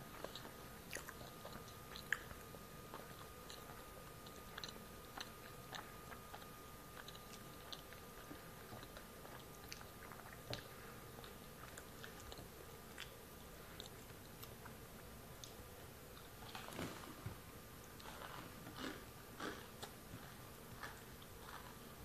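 Faint, irregular small clicks and crunches, louder and denser in a cluster about three-quarters of the way through, over a faint steady hum with a thin high whine that fades out about halfway.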